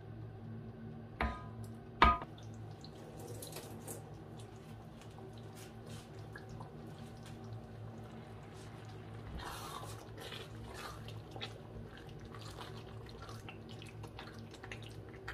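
A thick tomato-and-onion stew base simmering and being stirred in an enamelled cast-iron pot, with many small bubbling pops and wet stirring sounds. Two sharp knocks about one and two seconds in are the loudest sounds, and a steady low hum runs underneath.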